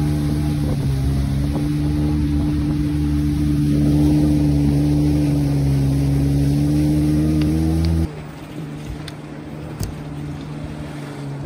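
Jet ski engine running at a steady speed, heard close up, with the rush of water. About eight seconds in the sound drops suddenly to a quieter rush of water and distant engine.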